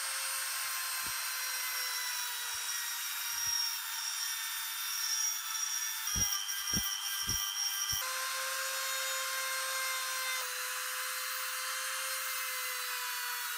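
Small high-speed rotary tool running with a steady whine, its disc grinding against a steel screw's threads and then its knurled head with a gritty rasp. A few low knocks come about six to eight seconds in.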